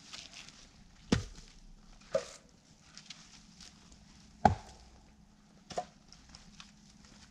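Split firewood pieces clunking against one another as they are handled and stacked: four sharp wooden knocks spaced irregularly a second or more apart, two of them with a short hollow ring.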